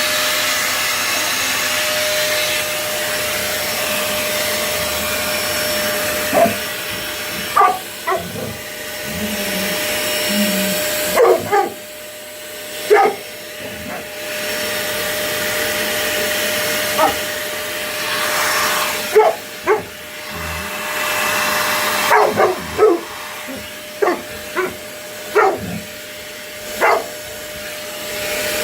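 A vacuum cleaner running steadily with a constant hum, its noise rising and falling as it works, while a dog barks at it in short, sharp barks, scattered and irregular, starting a few seconds in.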